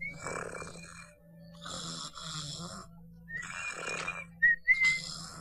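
Cartoon snoring from a sleeping man: four slow, breathy snores about every second and a half, some with a thin whistle in them.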